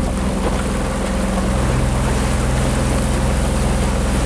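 Outboard motor of a small open boat running steadily under way, its low engine drone mixed with a steady hiss of wind and water rushing past.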